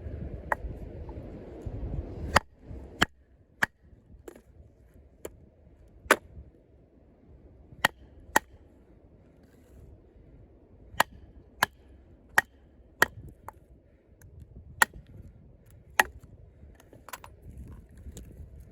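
Batoning: repeated sharp knocks as a baton strikes the spine of a 6 mm thick Sleipner-steel combat knife, driving it through a piece of wood to split it into quarters. There are about seventeen strikes at an uneven pace, roughly one a second, some coming in quick pairs.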